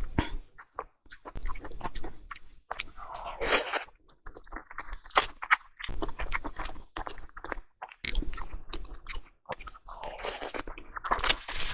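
Salmon sushi being chewed close to the microphone: many irregular short wet clicks and smacks of the mouth, with a few louder bites.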